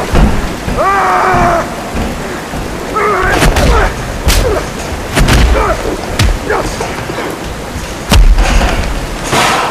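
Hand-to-hand fight sound effects: a string of heavy punches and body blows landing, with grunts of effort between them, over a steady rush of falling water.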